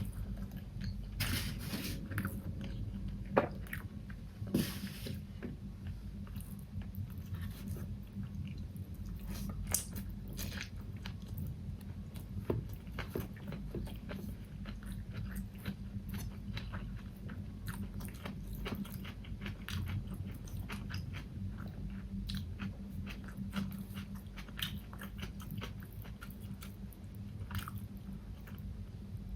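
Close-miked chewing and biting of food, with wet mouth clicks and crisp crunches throughout. There are a few louder crackles in the first five seconds, over a steady low hum.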